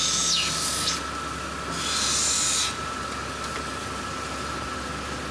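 An ametrine gemstone being ground against a lapidary faceting wheel: two hissing, scraping passes, the second ending under three seconds in, over a steady thin tone.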